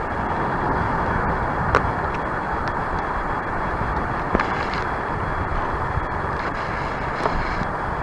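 Steady rushing noise of wind and water at sea, with a few short clicks.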